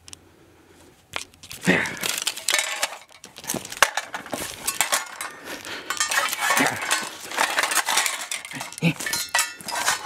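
Broken sheet-metal and plastic pieces of a smashed external hard drive enclosure clinking and rattling as they are handled and shuffled about on carpet, a run of sharp clicks and clatters starting about a second in.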